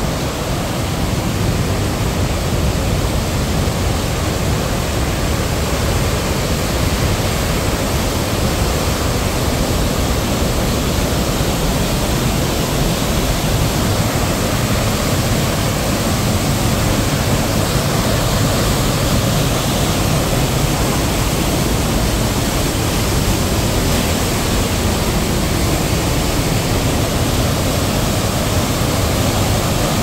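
Waterfall pouring into a rocky gorge and churning through whitewater below: a steady rush of falling water that does not change.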